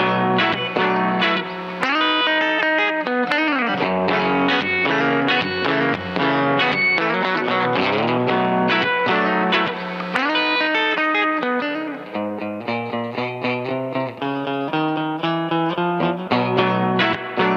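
Electric guitar, a Fender Coronado II played through a Keeley Compressor Plus pedal into a Milkman amp, picking country-style lines with string bends. From about two-thirds of the way in the playing turns to shorter, choppier picked notes.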